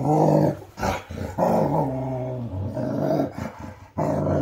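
A husky growling and grumbling in a few drawn-out, pitched vocal stretches: protest at being held down for nail trimming.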